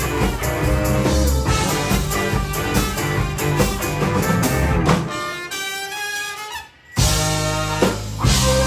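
Band music with drums and bass under horn-like instruments. About five seconds in the drums and bass drop out, leaving a held chord, then a brief near-silent break before the full band comes back in.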